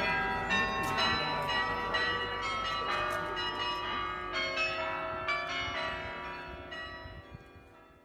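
Carillon bells of the Dom Tower, struck one after another in a melody, each note ringing on over the next. The bells fade away toward the end.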